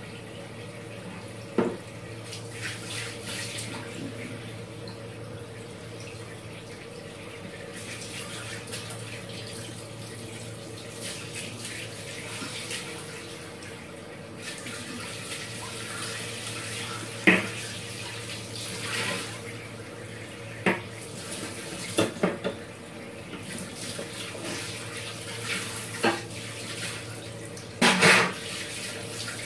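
Water running from a tap into a kitchen sink over a steady low hum, with sharp knocks and clatters now and then, the loudest near the end.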